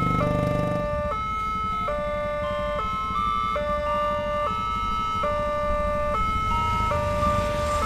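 Railway level-crossing warning alarm sounding its repeated two-tone electronic chime, the tone switching between high and low a little faster than once a second. Underneath it, motorcycle engines run, loudest as one passes near the start.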